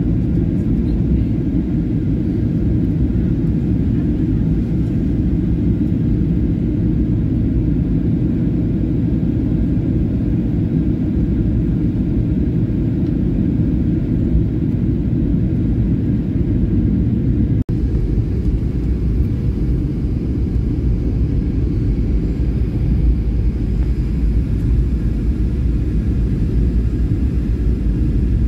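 Airliner cabin noise on the approach to landing: a steady, loud, low rumble of engine and air noise heard from inside the cabin. It cuts out for a split second once, about two-thirds of the way through.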